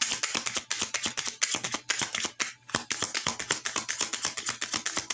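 A deck of tarot cards being shuffled by hand: a fast, dense run of clicks and flutters that goes on without a break.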